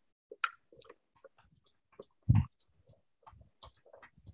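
Spatula scraping thick blended ranch dressing out of a blender jar into a bowl: scattered small clicks and scrapes, with one dull knock about two seconds in.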